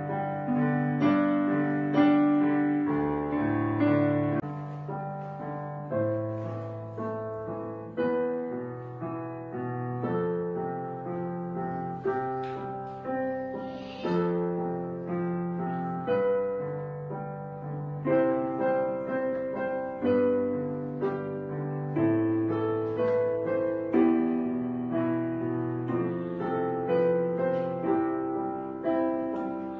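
Background piano music: slow notes and chords struck about once a second and left to ring away.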